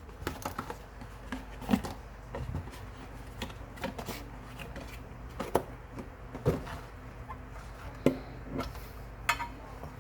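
Hands unpacking a watch from its box: scattered light clicks and taps of hard plastic and cardboard being handled, a few louder knocks among them.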